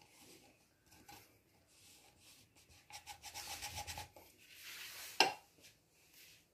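Plastic jar lid pressed and twisted through rolled dough against a countertop: dry rubbing and scraping, strongest about three to four seconds in. A single sharp click just after five seconds.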